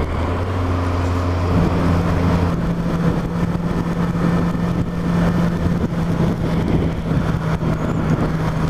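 Yamaha FZ8's inline-four engine running under way, its note stepping up to a higher steady pitch about a second and a half in, with steady wind and road noise.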